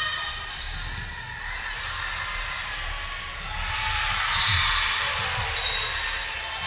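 Indoor volleyball rally in a large gym: ball hits and players' and spectators' voices, swelling into shouting and cheering about four seconds in as the point is decided.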